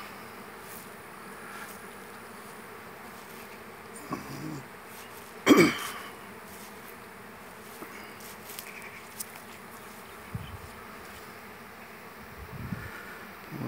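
Honeybees buzzing steadily around beehives. About five seconds in, one brief, much louder buzz stands out, as a single bee passes close.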